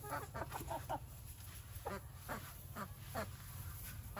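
Chickens clucking: a quick run of about six short calls, then single calls every half second or so.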